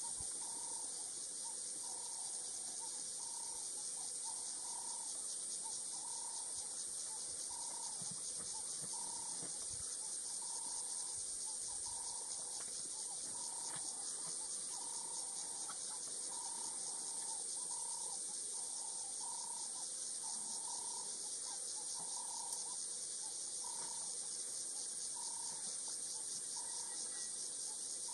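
A steady, high-pitched insect chorus chirring throughout, with a bird repeating a short call roughly once a second.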